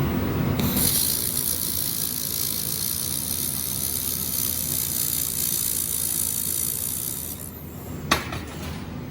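Laser welding machine running a weld: a steady high hiss over a low hum. It starts just after the opening and stops about a second before a single sharp click near the end.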